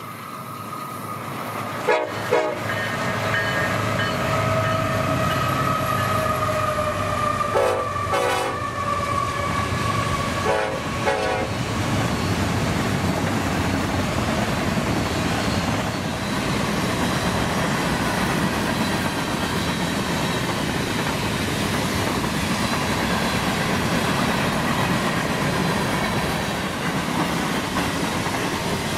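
Union Pacific freight train passing at speed. The locomotive horn sounds a long blast whose pitch sags a little as it goes by, fading out about eleven seconds in, with short clusters of sharp clatters from the wheels over the rail joints. Then a steady rumble and clatter of the freight cars rolling past.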